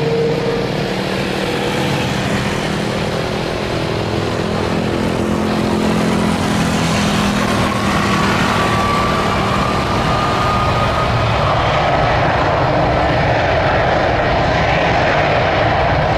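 Airbus A330 twin jet engines running at high power as the airliner rolls down the runway: a steady, heavy noise with a whine that slowly rises in pitch.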